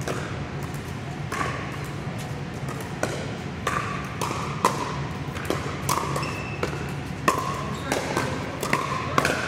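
Pickleball rally: plastic ball struck by paddles and bouncing on the court, a series of sharp, ringing pocks about a second apart, irregularly spaced. Each hit echoes in a large hall.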